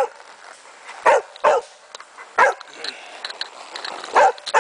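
A dog barking: a run of short, sharp barks at uneven intervals.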